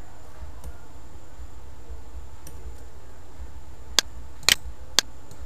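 Computer mouse clicking over a steady low hum: a few sharp single clicks starting about four seconds in, at about half-second intervals, two of them as quick double clicks.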